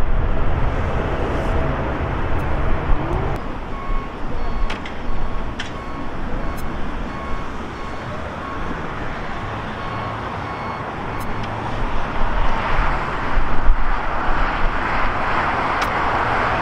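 Jet airliner engine rumble as a twin-engine widebody climbs away, cut off abruptly about three seconds in. After that comes steady airport ground noise with a vehicle's reversing alarm beeping repeatedly, and louder jet engine noise builds over the last few seconds.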